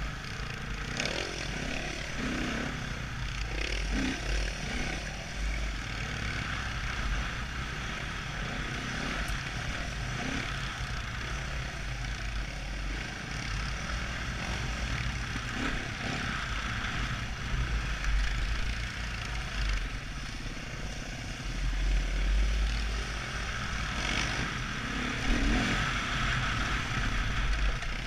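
Dirt bike engine running while riding a trail, with heavy wind buffeting on the helmet-mounted microphone; the engine note swells a little in the last few seconds.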